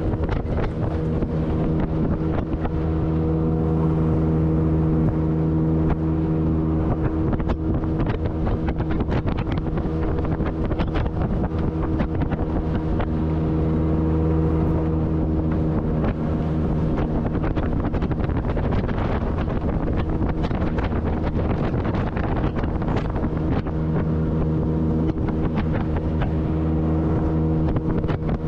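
Outboard motor of a homemade polyethylene jetboat running steadily at speed on the water, its hum clear at first, less distinct through the middle and clear again near the end. Wind buffets the microphone throughout.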